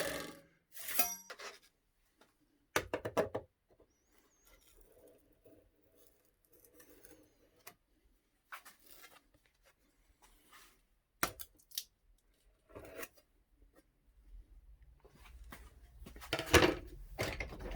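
Metal drywall scraper working two-part epoxy resin on a magnet: scattered short scrapes and clicks with quiet gaps between them, busier near the end.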